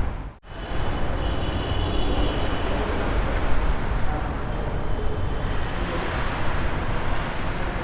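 Steady road-traffic rumble with a murmur of people's voices. It cuts out briefly about half a second in, then carries on.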